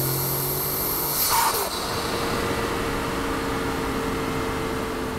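Cartoon flying sound effect: a steady, jet-like rushing hiss over a low hum and a high whistle. The hum and whistle cut off about a second in with a short falling swoop, and a steady rush with a softer hum carries on.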